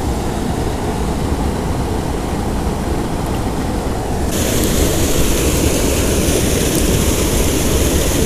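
Steady rush of creek water with a low rumble of wind on the microphone. About four seconds in the sound turns suddenly brighter and hissier: the pour of a small waterfall over a stone dam.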